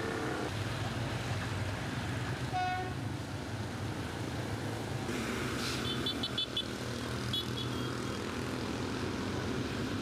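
Street traffic running steadily, with a short horn toot about two and a half seconds in and a few quick high-pitched beeps later on.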